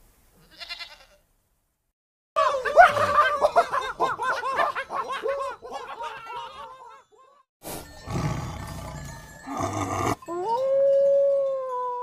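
A string of animal calls: a short call near the start, then a long wavering call from about two seconds in, some rough noisy calls around eight to ten seconds, and near the end a wolf howl that rises and then holds one steady note.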